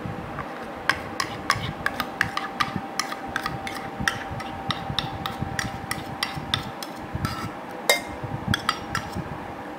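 Steel spoon scraping and tapping against a stainless steel bowl and the rim of an enamel pot while scooping out mango puree: a quick, irregular run of light metallic clinks and scrapes, with one louder clink about eight seconds in.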